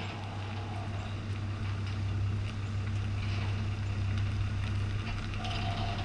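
Pickup truck engine running low and steady as it slowly backs a boat trailer toward the listener, growing louder as it comes closer.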